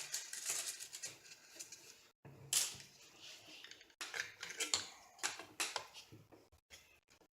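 Irregular small clicks, taps and rustles of hands working a wire through a hole in a 3D printer's frame and handling its parts.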